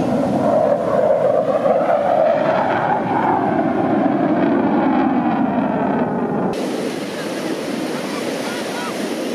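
Jet aircraft passing overhead: a loud, wavering roar that sweeps slowly in pitch and cuts off suddenly about two-thirds in. After the cut there is a steadier hiss of surf and wind.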